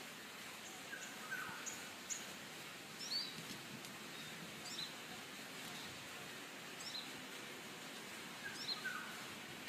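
Small birds chirping in short, quick calls every second or two, over a steady faint background hiss.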